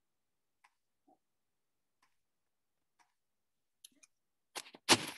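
Sparse, faint clicks from someone working a computer, a few seconds apart, then a louder thump and rustle near the end.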